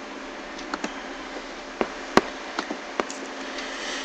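Several separate sharp clicks from a computer mouse and keyboard, the loudest a little after two seconds, over a steady faint hum.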